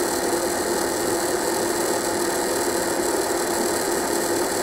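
Nesco food dehydrator's fan motor running steadily, a constant hum over the rush of moving air.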